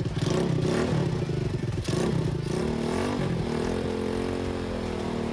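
Racing ride-on lawn mower engine running, revved up and down a few times, then settling to a steady idle about three and a half seconds in.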